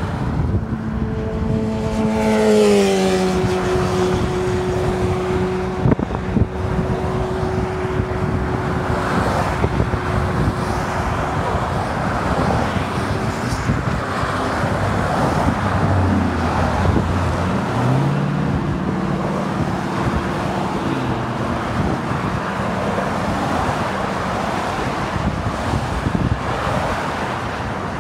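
Freeway traffic passing close by: a steady rush of tyres and engines. A droning vehicle hum drops in pitch about two seconds in as it goes past, and there is a sharp knock around six seconds.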